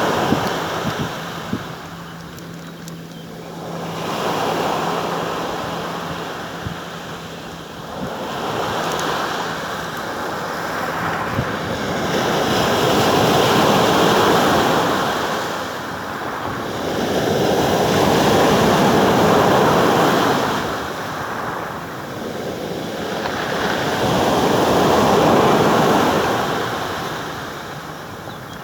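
Sea surf breaking on the shore, swelling and ebbing about every five seconds, with wind on the microphone. A faint low steady hum runs under the first ten seconds or so.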